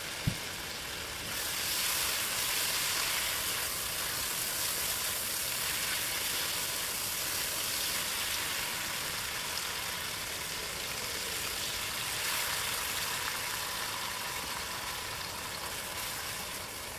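Chicken, onions and a soy and oyster sauce mixture sizzling steadily in a hot nonstick wok as it is stir-fried with a plastic spatula; the sizzle grows louder about a second in. A single brief knock comes just after the start.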